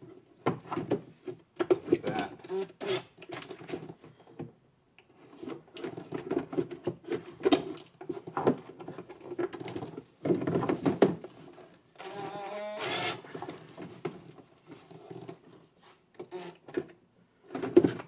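Hand tools working at the Torx screws of a golf cart's plastic air filter housing: irregular clicking, scraping and rattling.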